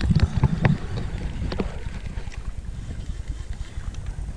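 Wind buffeting a camera microphone, a steady low rumble. A few sharp clicks and knocks come in the first second and a half.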